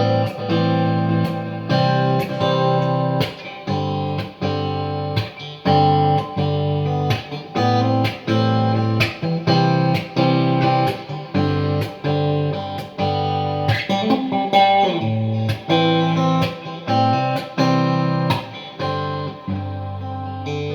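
Xotic XSC-1 electric guitar played: chords and notes picked and strummed, each ringing on until the next attack, about one or two a second.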